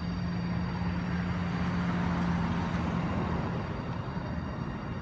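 A motor vehicle driving past: a steady engine hum with a rush of noise that swells to its loudest about two seconds in, then fades away.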